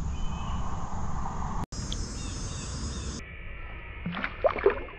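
A rock bass is let go over the side of a canoe and splashes and slaps at the water surface several times near the end, the loudest sounds. Before that there is a steady low rumble of outdoor background.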